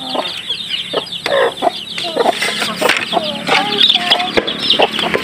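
Hens clucking while chicks keep up a fast, high peeping chatter.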